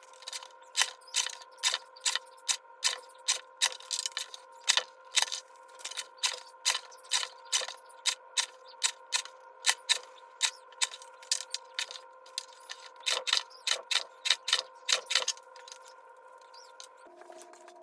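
A long run of sharp clicks and taps, about two a second, as a teacher toolbox kit is handled and put together; the clicking stops a couple of seconds before the end. Faint steady tones sit underneath and change pitch near the end.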